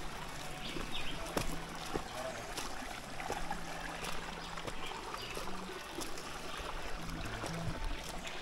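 Shallow stream running over a rocky bed, with a few sharp clicks of footsteps on the river stones.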